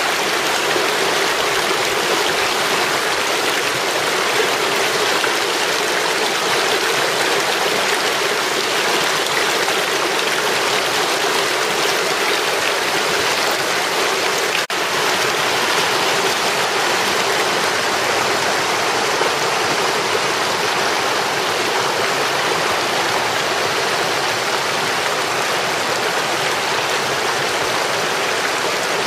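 Small shallow stream rushing over rocks and riffles, a steady, even rush of running water, with a brief dip about halfway through.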